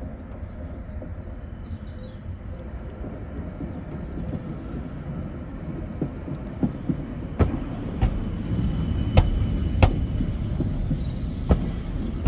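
CAF Urbos 100 tram running past at low speed: a rumble that grows louder as it nears, with a series of sharp clacks from its wheels on the track in the second half and a faint high whine.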